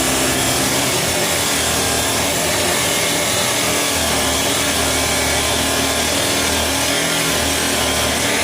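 Abrasive cut-off disc grinding through steel stock, a steady harsh hiss that runs on without a break.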